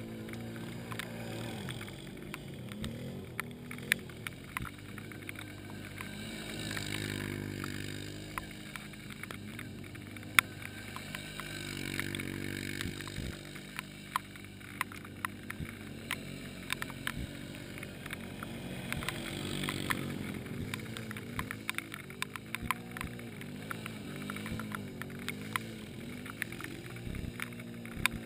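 ATV engines some way off, revving up and down as they work through a mud bog. Scattered sharp clicks and ticks come through over the engine sound.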